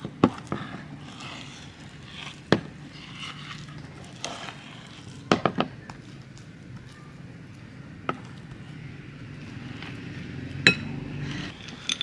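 Wooden spoon scraping and knocking against a white bowl and a glass bowl as a thick, sticky mixture is scooped across. There are several sharp clicks spread out, with a quick cluster of three about halfway through.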